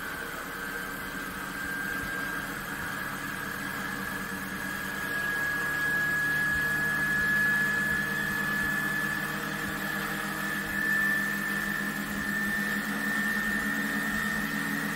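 Small brushed DC motor spinning a heavy steel flywheel and a larger DC motor used as a generator, running with a steady whine and low hum. The whine slowly rises in pitch as the flywheel gains speed and stores energy, the generator's voltage climbing with it.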